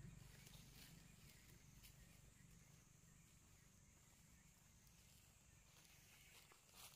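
Near silence: a faint low rumble and a faint steady high tone, with a few faint ticks.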